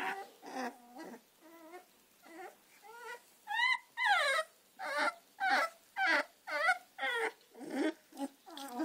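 American Staffordshire terrier puppies whimpering: a quick run of short, high, wavering cries, about two a second, getting louder about three and a half seconds in.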